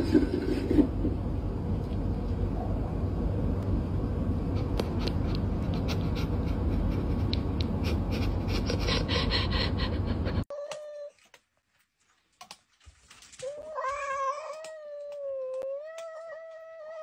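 A loud, steady rough noise for about ten seconds, which stops abruptly. After a short quiet stretch with a few faint clicks, a domestic cat gives one long, wavering meow lasting about three and a half seconds, near the end.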